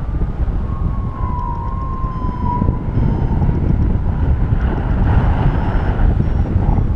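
Airflow from a paraglider in flight rushing and buffeting over the microphone, with a thin, slightly wavering tone that fades about two and a half seconds in.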